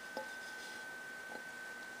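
Two faint light clicks, about a second apart, as twisted wire is bent with lineman's pliers against a tin can. A steady faint high-pitched tone runs underneath.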